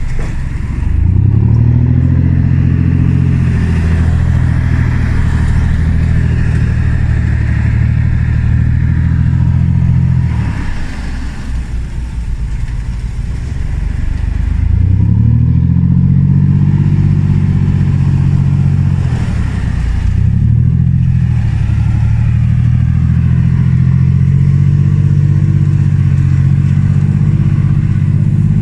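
Land Rover Discovery 1's 300Tdi 2.5-litre four-cylinder turbodiesel revving up and holding steady revs, easing off about ten seconds in, then revving up again, with a brief dip and rise near the middle of the second pull.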